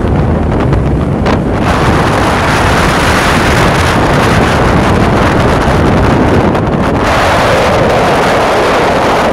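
Wind rushing loudly and steadily over the microphone of a moving vehicle on a road, with a low rumble of the ride underneath.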